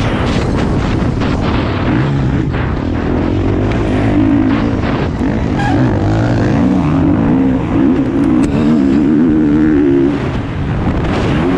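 Motocross bike engine heard from a camera mounted on the bike, its pitch rising and falling continuously as it is ridden hard on a dirt track, over wind rush.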